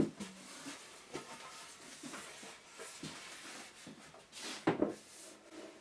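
Oak boards knocking and scraping against a wooden workbench as they are handled: a sharp knock at the start, a few lighter taps and rubs, and a second loud knock near the end.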